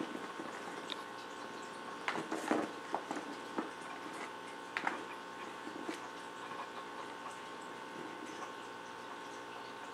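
A cat batting at a toy: a cluster of light knocks and rattles about two to three seconds in and another near five seconds, over a steady hum.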